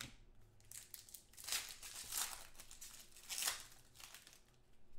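Plastic wrapper of a pack of football trading cards crinkling in several bursts as it is torn open and handled.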